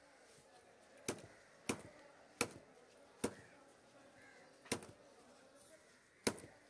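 Long curved fish-cutting blade knocking against a wooden chopping block while scaling and cutting a fish: six sharp knocks, irregularly spaced, between half a second and a second and a half apart.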